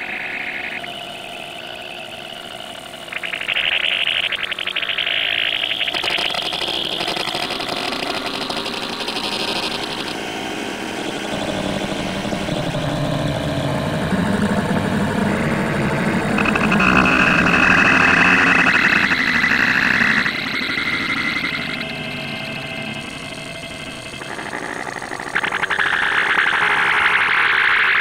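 Heavily distorted, effects-processed cartoon audio: a dense buzzing, engine-like mix with no clear words. Its pitch band and texture jump abruptly every few seconds, and it grows louder about three seconds in and again in the middle.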